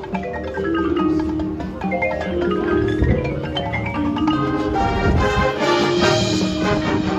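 High school marching band playing, with mallet percussion such as marimba or xylophone carrying quick runs of notes up and down.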